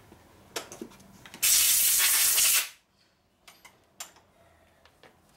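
A loud burst of pressurised hiss lasting just over a second, cutting off sharply. A few light knocks of small metal parts being handled come before and after it.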